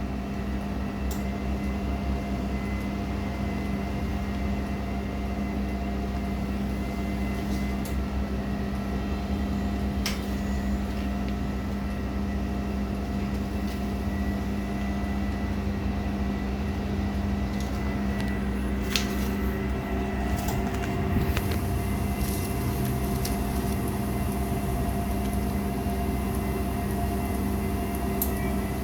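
Continuous band sealer running: a steady motor hum with a few fixed tones above it and occasional sharp clicks.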